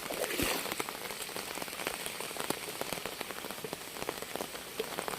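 Rain falling, with many separate drops heard striking a surface over a steady hiss.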